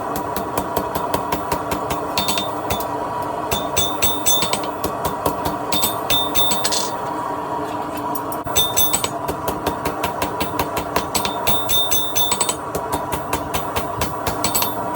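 Hammer striking hot steel on an anvil in quick runs of blows, several a second, with a bright metallic ring, broken by short pauses between the runs. A steady whirring noise runs underneath.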